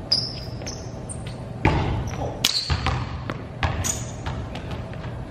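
Basketball bouncing on a gym floor, several irregular bounces echoing in a large hall, with short high squeaks of sneakers on the court between them.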